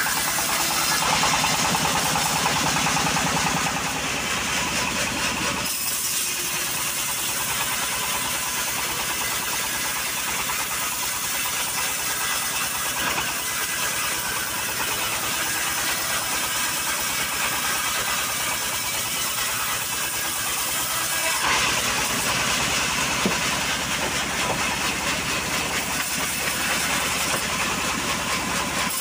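Homemade engine-driven band sawmill running steadily, its band blade sawing lengthwise through a log. The sound is deeper and heavier for the first six seconds or so and again from about twenty-one seconds on, when the blade is in the wood.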